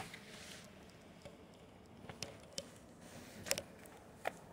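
A few faint, sharp clicks and taps spread through the quiet, the loudest two about three and a half and four and a half seconds in: handling noise of a phone being carried and footsteps as someone walks.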